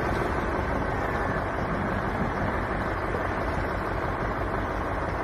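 Heavy truck's diesel engine running, a steady rumble under a dense, even noise.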